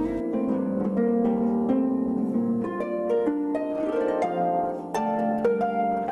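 Solo harp music: a continuous stream of plucked notes ringing over one another.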